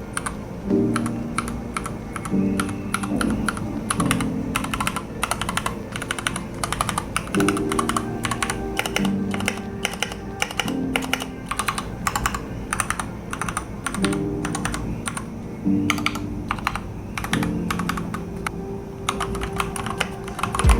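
Steady typing on a TOM680 mechanical keyboard with Gateron Milky Yellow linear switches, PBT double-shot keycaps and stock stabilizers, in a quick irregular run of key clacks. Background music with held chords plays underneath.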